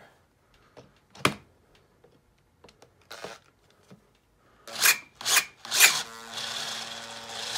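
Click about a second in, then a brushed Makita XPH10 18V cordless drill in drill mode, pulsed three times and then run steadily. It is driving a screw into a cinder block under heavy load, the motor's whine mixed with a rasping of the screw cutting into the block.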